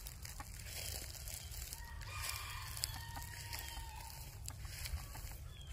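A rooster crowing once, a single call of about two seconds starting about two seconds in, with a rising opening and a lower, falling tail.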